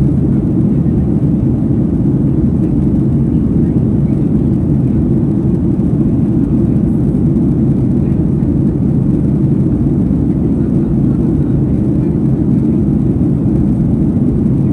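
Deep, steady roar inside the cabin of a Boeing 737 MAX 9 in flight: its CFM LEAP-1B turbofan engines and the airflow over the fuselage, heard from a seat behind the wing.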